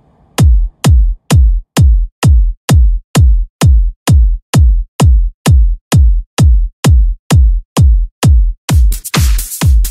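Electronic dance music: after a moment's quiet, a lone drum-machine kick drum starts on every beat, a little over two thumps a second, each dropping in pitch. Near the end a bright hissing percussion layer joins the kick.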